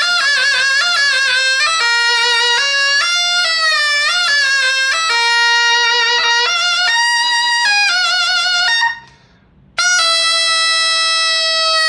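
Taepyeongso, the Korean double-reed shawm with a metal bell, playing a solo melody of held notes, wavering in pitch on the first notes. About three-quarters through, the playing stops for about a second for a breath, then resumes on a long held note.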